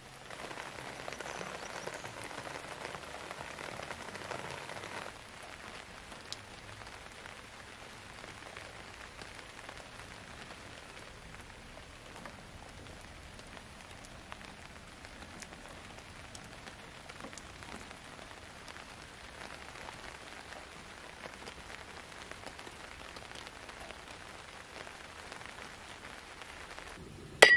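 Steady rain falling on surfaces, somewhat louder for the first five seconds and then softer and even. There is a single sharp click just before the end.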